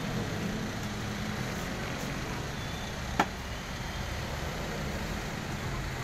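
Steady street traffic noise, a low rumble, with one sharp click about three seconds in.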